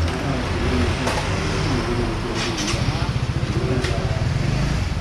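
A motor vehicle engine running steady and low, settling into a rapid low pulsing about three seconds in, with a few sharp clicks over it.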